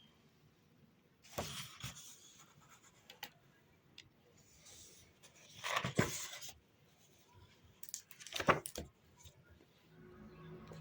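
Three short bursts of rustling and rubbing from things being handled, with a few light clicks in between.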